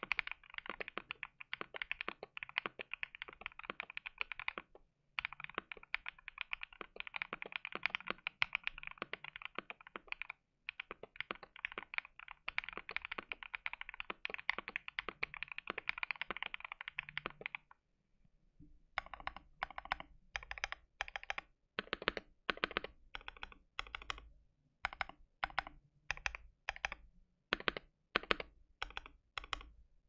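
Fast typing on a modded Keychron Q1 mechanical keyboard with an aluminum plate and Durock POMS linear switches lubed with Krytox 205g0, a dense stream of keystrokes with brief breaks. About eighteen seconds in the typing stops, then resumes as slower, separated clusters of keystrokes with a deeper thud.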